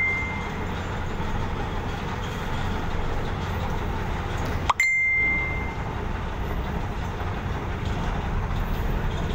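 Steady low rumble of a ferry's engine. A single bright, bell-like ding rings out about five seconds in and fades within a second.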